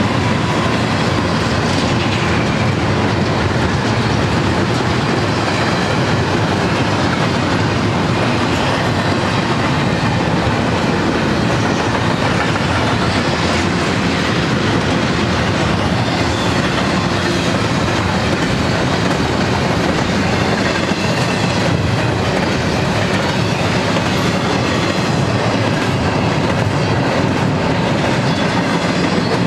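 Double-stack intermodal freight train's container well cars passing close by: a loud, steady noise of steel wheels running on the rails that holds without letting up.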